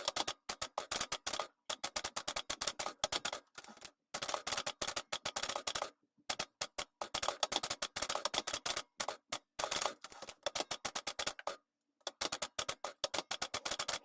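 1968 Olympia SF De Luxe manual typewriter being typed on: fast runs of key strikes, broken by short pauses about four, six and twelve seconds in.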